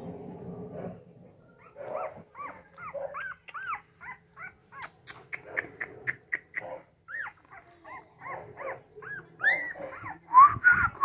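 A litter of nine-day-old American bully puppies squeaking and whimpering: many short, high calls that rise and fall in pitch, several a second, getting louder near the end.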